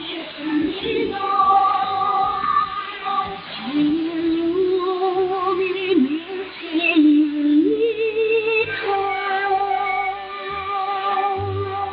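Music received over shortwave radio: a woman singing a slow melody with long, wavering held notes over sustained accompaniment, heard through the receiver's narrow bandwidth that leaves no treble.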